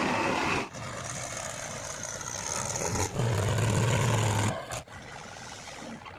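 Diesel engine noise of heavy machinery running, in several short stretches that change abruptly, with a loud low steady hum in the middle stretch.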